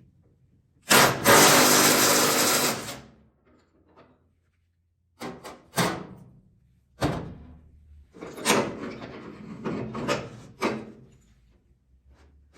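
A power tool runs for about two seconds, then several sharp knocks and a stretch of clatter as parts are handled.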